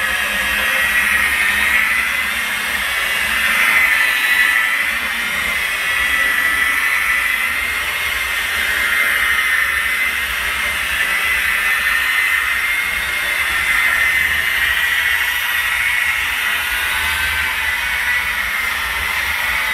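Electric polisher with a foam pad running steadily on car paint: a continuous motor whine that wavers slightly in pitch as the pad is worked over the panel.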